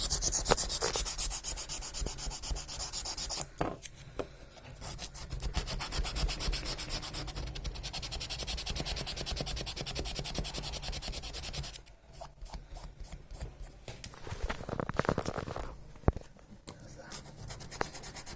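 Sandpaper rubbed in rapid back-and-forth strokes over the copper contact pins of a printer head, scouring them bright. The scrubbing pauses briefly about three and a half seconds in, then goes on steadily until about two-thirds through, after which it turns softer and intermittent.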